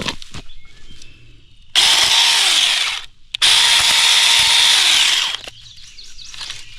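Small battery-powered electric mini chainsaw (RLSOO, 6-inch bar) cutting firewood in two runs. The first lasts about a second, the second about two seconds, and each spins up at the start and winds down at the end. A few light knocks come before the first run.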